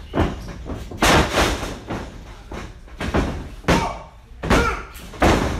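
Bodies slamming onto a wrestling ring's mat and boards. The loudest crash comes about a second in, after a lift and slam, followed by several sharper thuds on the ring. A short shout is heard between the later thuds.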